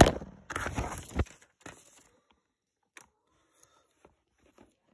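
Rustling and crinkling handling noise, loud in the first second and a bit, then a few faint clicks.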